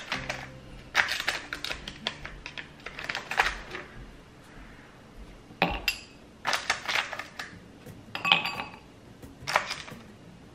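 Ice cubes being lifted from a plastic ice-cube tray and dropped into a stemmed wine glass, clinking against the glass and each other in short clusters of sharp clicks every second or two.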